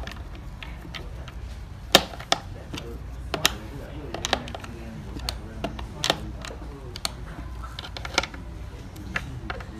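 Sharp, irregular clicks and clinks of a skate tool and screwdriver working the mounting nuts and bolts that fasten a skateboard truck to the deck. The loudest click comes about two seconds in.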